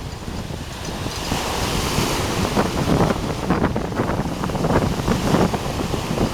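Sea waves washing onto the beach, with a hissing wash swelling about a second in and fading, over low rumbling wind buffeting the microphone.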